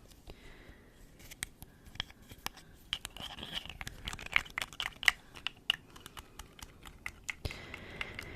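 Close-miked ASMR trigger sounds: a run of irregular sharp clicks and scratchy crackles, busiest from about three seconds in.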